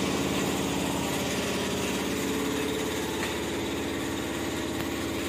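Honda CG125's single-cylinder four-stroke engine idling steadily.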